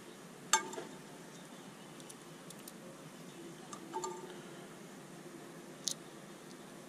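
Small machined steel parts clinking together as they are handled. One sharp, ringing clink comes about half a second in, a couple of lighter clinks follow around four seconds, and a short tick comes near six seconds.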